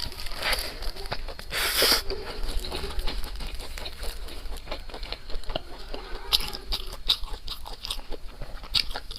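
Close-miked chewing of crunchy food, with a rapid run of crisp crackling clicks. A louder crunchy bite comes about one and a half seconds in.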